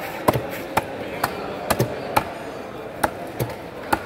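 Large knife chopping crosswise into a whole trevally and knocking on the wooden chopping block beneath, about nine sharp strokes at irregular intervals, some in quick pairs.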